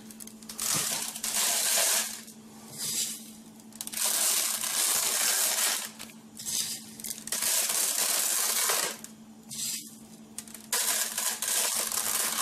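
Handfuls of coarse rock salt being scooped from a wooden bowl and scattered into a plastic tub to make a salt bed. The grains rattle and crunch in repeated bursts of a second or two each.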